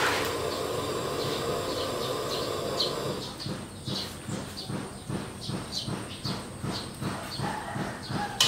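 Liquid in a metal wok heating over a fire: a steady hiss at first, then from about three seconds in a quick, even bubbling rhythm as it comes to the boil.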